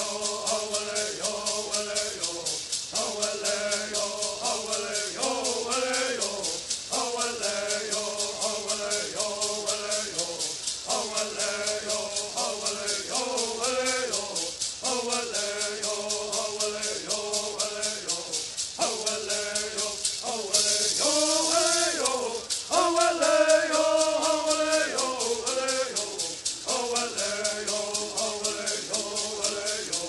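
Bird singers: a group of men singing a bird song in unison, short phrases repeated about every two seconds, over a fast, steady shaking of gourd rattles. The rattling swells briefly about two-thirds of the way through.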